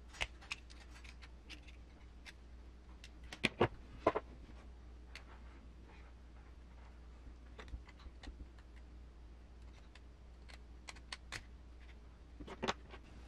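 Small RC crawler driveshaft parts clicking and tapping as they are handled and fitted together by hand, in scattered single clicks with a louder cluster about three and a half seconds in and another near the end, over a faint steady low hum.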